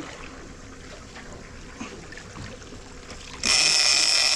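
A big-game fishing reel's clicker buzzing loudly for about a second near the end as line is pulled off the reel. It starts suddenly at a steady pitch, as a marlin held alongside on the leader pulls away.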